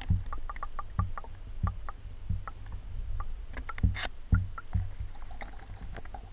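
Footsteps and camera handling noise: irregular low thumps about every half second, small clicks and scrapes between them, over a steady low rumble.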